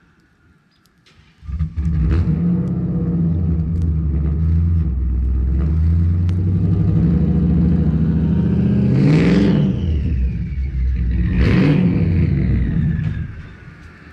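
Turbocharged 6.0 V8 of a GMC 2500HD with a rear-mount turbo, held at high revs against the two-step launch limiter for about eleven seconds, then let off. The revs dip and come back twice. From the second dip on, a thin turbo whistle falls in pitch.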